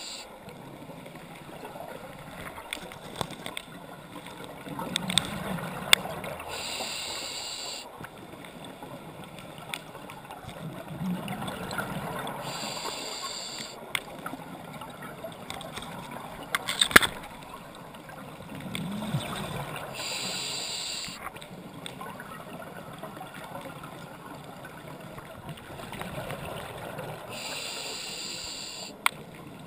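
Scuba diver breathing through a regulator underwater, about one breath every seven seconds: a gurgle of exhaled bubbles and a short hiss on each inhale. A few sharp clicks, the loudest about 17 seconds in.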